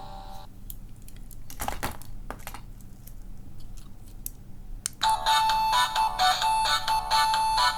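Small electronic sound toy: a few plastic clicks and taps, then about five seconds in it starts playing a beeping, ringtone-like electronic melody of short stepped notes.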